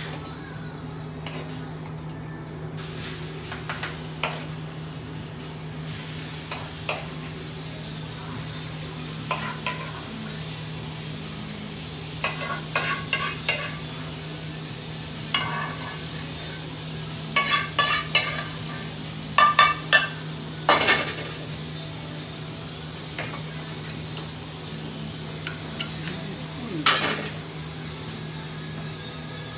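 Curry frying and sizzling in a pan on a gas range, with a metal ladle stirring and knocking against the pan in several short bursts of clatter, most of them in the second half. A steady low hum runs underneath.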